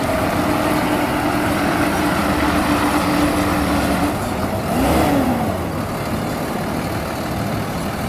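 Boom truck's diesel engine running as the truck drives slowly along, a steady hum over a rushing noise. Its pitch rises and falls once about five seconds in.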